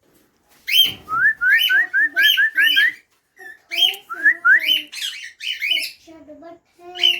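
Pet parrot calling: sharp repeated screeches mixed with a quick run of short rising whistled notes, about eight in under two seconds, then more screeches and a few rising whistles.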